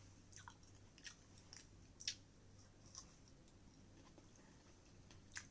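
Faint chewing of fresh strawberries: a few soft, wet mouth clicks, irregularly spaced, over near silence.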